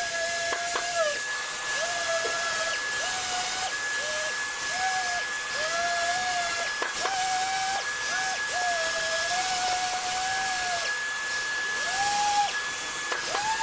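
Orbital sander running with 600-grit paper on a car bumper, a steady hissing whine with a lower tone that keeps breaking off and shifting in pitch every second or so as the pad works the surface.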